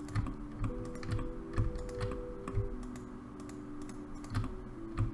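Computer keyboard and mouse clicks, scattered single clicks at an irregular pace.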